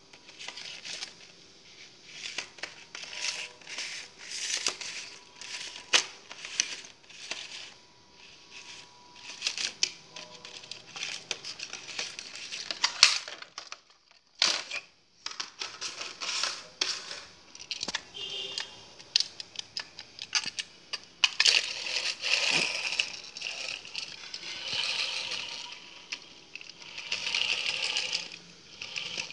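Clear plastic packaging and a cardboard toy box crinkling and crackling in the hands, with many sharp clicks, as a toy train is unpacked.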